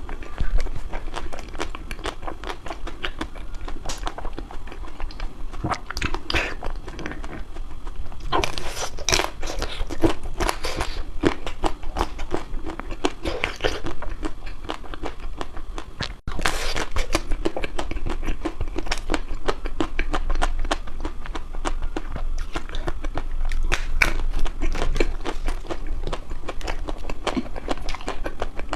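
Close-up crunching and chewing of crispy ice cream: dense, irregular crackling bites that carry on throughout, with a very brief break about sixteen seconds in.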